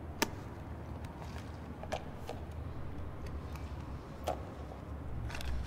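Quiet outdoor background: a low steady rumble with a few scattered sharp clicks and taps, the loudest about a quarter second in.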